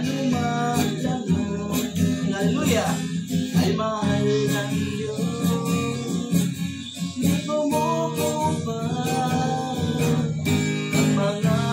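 Acoustic guitar strummed with a man singing along.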